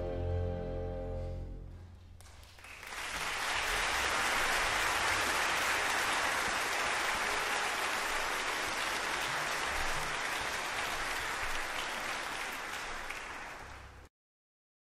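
A string orchestra's held final chord fades away. About two seconds in, a live audience's applause swells up and carries on steadily, then cuts off suddenly near the end.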